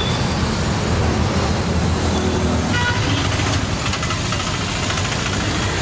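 Road traffic: vehicle engines running steadily, with a short vehicle horn toot about three seconds in.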